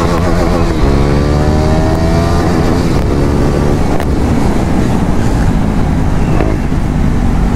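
KTM Duke 390's single-cylinder engine accelerating hard through the gears, its pitch climbing and dropping back at two upshifts in the first few seconds. It then runs on at speed with a steadier, noisier sound.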